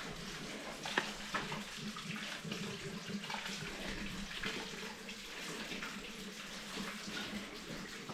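Running water splashing steadily, with a few small clicks.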